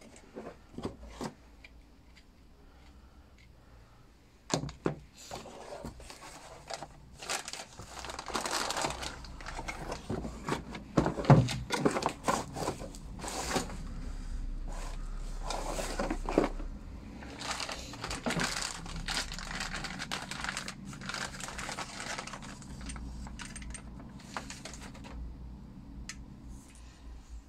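Plastic packaging and a cardboard box rustling and crinkling in irregular bursts as a grease gun is unpacked by hand, with a few sharp knocks of the parts being handled, the loudest about 11 seconds in.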